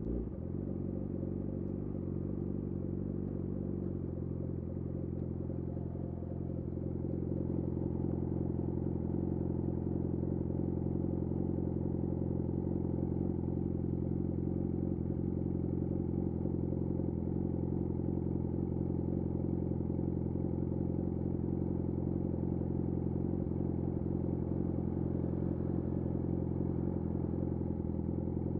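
Yamaha YZF R6's inline-four engine idling at a steady pitch through a de-catted Akrapovic slip-on exhaust, a little louder from about seven seconds in.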